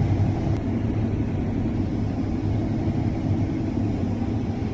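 Combine harvester running steadily while cutting wheat: a continuous low drone with one faint click about half a second in.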